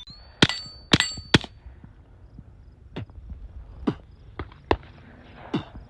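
Three suppressed shots from a Glock 44 .22 LR pistol with a SilencerCo Sparrow suppressor, fired about half a second apart, each followed by a high ringing clang. Several fainter clicks and knocks follow.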